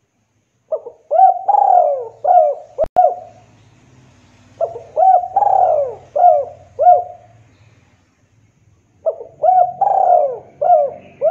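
Spotted dove cooing: three phrases about four seconds apart, each a quick run of rising-and-falling coos. A sharp click near the end of the first phrase.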